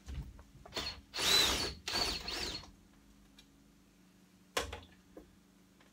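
Power drill/driver running in short bursts with a whine that rises and falls, backing the screws out of a wood stove's stovepipe to disconnect it. A single sharp knock follows a few seconds later.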